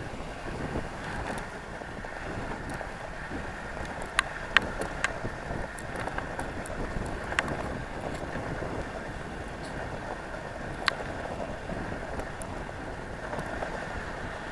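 Dog sled running along a packed snow trail: a steady rushing noise of the runners over the snow, with a few sharp clicks, several of them close together about four seconds in.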